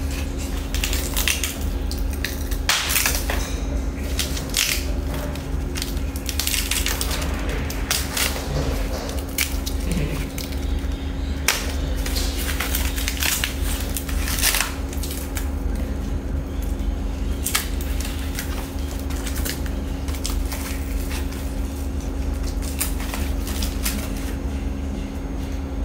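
Irregular scraping and crunching noises from hands working at something on a table, over a steady low hum.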